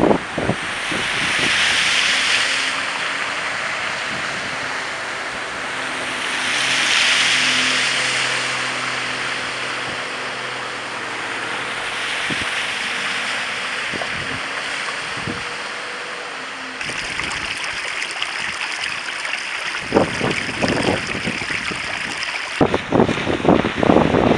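Cars driving through shallow floodwater on a road, tyres sending water swishing up in two swells, with a low engine hum underneath. Near the end, wind buffets the microphone in irregular gusts.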